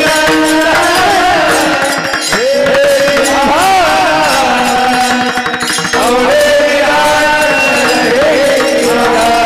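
A Varkari bhajan (panchapadi): a singer holds and ornaments a melody with gliding turns over a steady drone, with drum and cymbal strokes keeping the rhythm.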